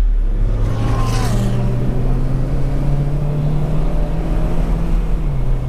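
Honda Civic Si's K20Z3 four-cylinder engine heard from inside the cabin, pulling under acceleration with its note climbing, then dropping near the end.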